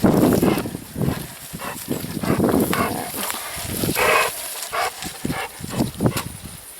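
An animal making a run of short, irregular noises close by.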